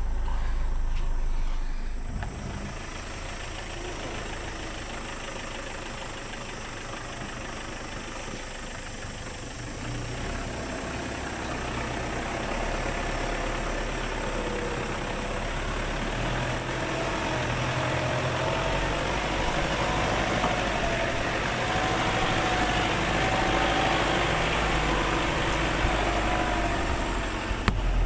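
Car engine running as the car is driven over a slippery dirt track. It grows louder in the second half, with a wavering engine tone.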